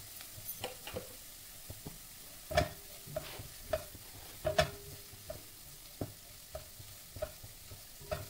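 A spatula scraping and knocking against a coated kadai as chopped onion, green chilli and spice powders are stirred in hot oil, with a faint sizzle underneath. The strokes come irregularly, the loudest two about two and a half and four and a half seconds in.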